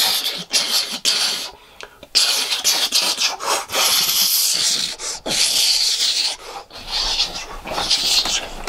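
A man imitating Iron Man's jet thrusters with his mouth: long breathy hissing whooshes with short breaks between them.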